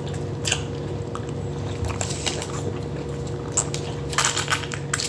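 Biting into and chewing an Impossible Whopper close to the microphone, in a series of short sharp clicks and crackles over a steady low hum.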